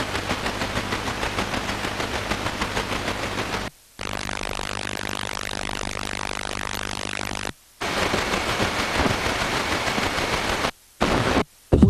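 FM tuner output while stepping up the band through weak, distant stations: a hiss of static, pulsing about three times a second in the first few seconds. The audio cuts to silence for a moment at each frequency step, three times and then once more briefly near the end.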